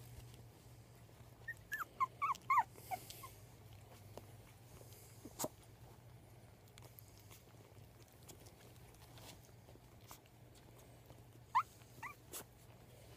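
Young puppies squeaking and whimpering: a cluster of about half a dozen short, high-pitched squeaks about two seconds in, and three more near the end.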